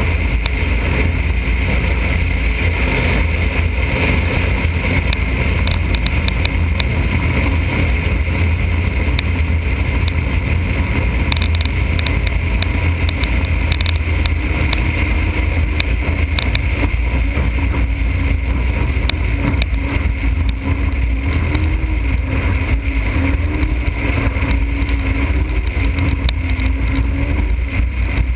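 Motorboat running steadily under way, a continuous loud drone of engine with wind and water noise. In the second half a faint, slightly wavering engine tone comes through the drone.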